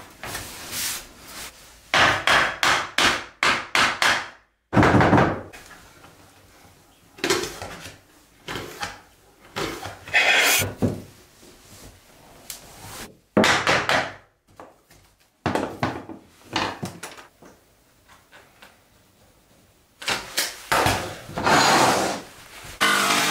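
Laminate floor planks being fitted and knocked into place: clusters of sharp wooden knocks and taps, including a quick run of taps about two seconds in and a heavier thump about five seconds in.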